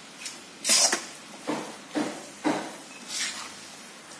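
A spatula scraping and knocking against a wok as noodles are stir-fried and tossed: about six short strokes, roughly one every half second, the loudest about a second in.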